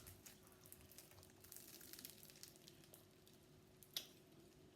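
Faint crackling and tiny pops of slime being pulled slowly by hand, with one sharper click about four seconds in.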